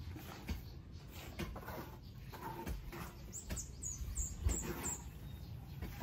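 Light taps and scrapes of masonry work on concrete hollow blocks over a low background rumble. About halfway through comes a run of five quick, high, falling chirps.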